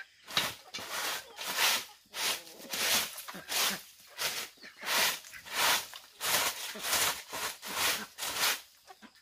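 Rhythmic scraping, swishing strokes of a garden-cleaning tool working the ground, about one and a half strokes a second.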